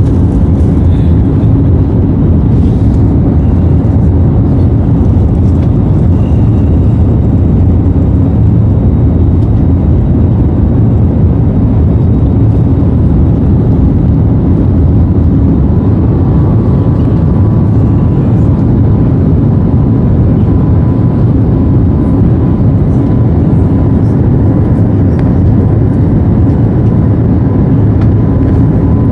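Jet airliner cabin noise: a loud, steady rumble of the engines and rushing air heard from inside the passenger cabin. About halfway through, a faint, high steady tone joins it.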